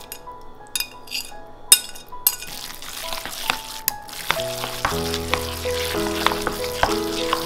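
Ground pork and shrimp dumpling filling being stirred in a bowl: a wet, sticky mixing noise that gets busier after about three seconds, with a few sharp clicks in the first couple of seconds. Background music with held notes, louder in the second half.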